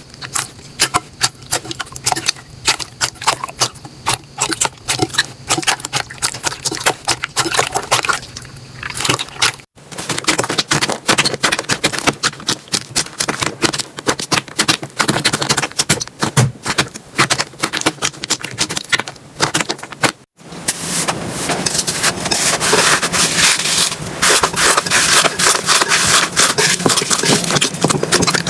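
Hands squeezing and pressing slime, making rapid wet clicks, pops and crackles. The sound breaks off twice as one slime clip gives way to the next, and the crackling is densest near the end.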